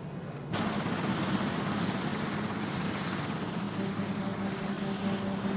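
Sikorsky S-61N helicopter running on the ground with rotors turning: a dense, steady rushing noise with a low hum and a thin high turbine whine, cutting in suddenly about half a second in. Before that, only faint cabin noise.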